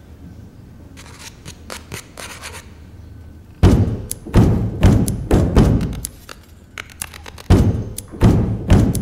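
Hands thumping on wooden desks in a rhythm: a few light taps, then two phrases of heavy thumps, the first starting a little over three and a half seconds in and the second about seven and a half seconds in.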